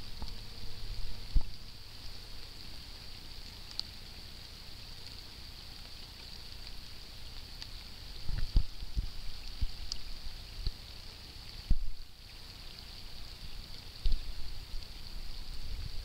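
Light rain falling on water, with a steady high hiss and irregular low thumps of wind buffeting the microphone, strongest a few times in the second half.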